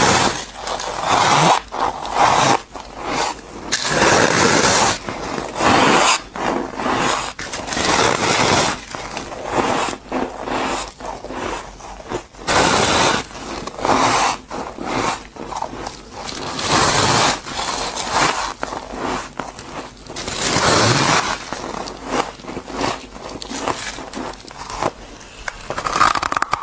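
Close-up crunching of a person biting off and chewing chunks of freezer frost: repeated crisp, crumbly crunches, one every second or two.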